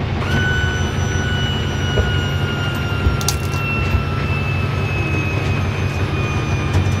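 The toy hauler's powered landing gear whines steadily as it lowers the gooseneck coupler onto the ball in the truck bed. Its pitch sinks slowly, and it cuts off near the end, with a couple of clicks about three seconds in. Under it, the pickup truck's engine idles with a steady rumble.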